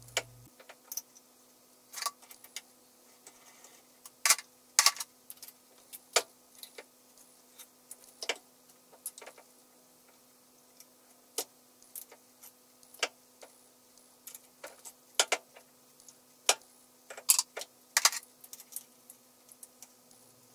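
Irregular small metallic clicks and clinks as a four-jaw independent chuck and hand tools are handled on a stopped lathe. The clicks come in uneven clusters over a faint steady hum.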